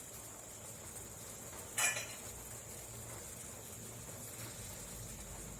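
A pot of water boiling faintly on a stove, with a single short metallic clink of kitchenware a little under two seconds in.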